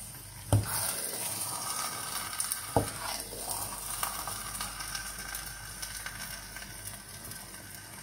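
Minced boiled honey mushrooms sizzling steadily as they fry in oil in a frying pan, stirred with a wooden spatula that knocks against the pan twice in the first three seconds.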